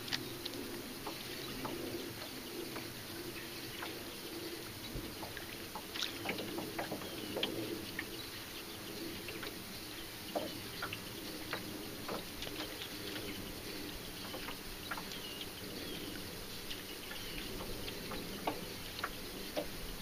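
Fishing line being reeled in after a cast: a soft steady reel whir with many scattered light clicks and small water splashes, as a topwater popper is worked back across the surface.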